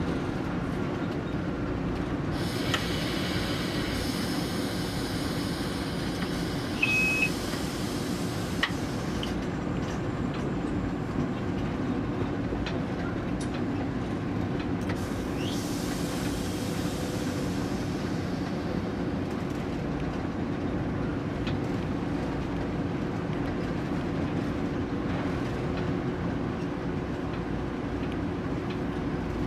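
Diesel locomotive running steadily, heard from inside its cab as the train rolls along the track, with a steady low hum under the wheel and rail noise. The rushing noise swells for several seconds twice. A brief high tone sounds about seven seconds in, and there are a few faint clicks.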